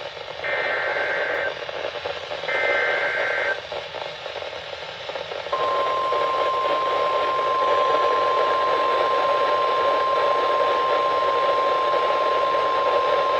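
NOAA Weather Radio Emergency Alert System warning over receiver hiss. Two one-second SAME digital header bursts come about a second apart. After a short pause, the steady single-pitch 1050 Hz weather radio warning alarm tone starts about five seconds in and holds.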